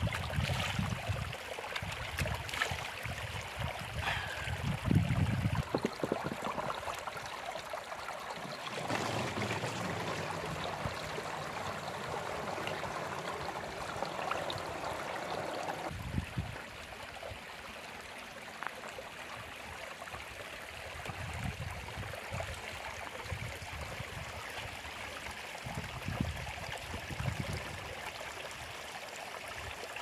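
Small mountain stream running and trickling over stones, with occasional low rumbles.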